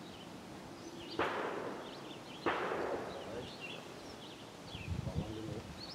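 Two gunshots about a second and a half apart, each a sharp crack followed by a trailing echo.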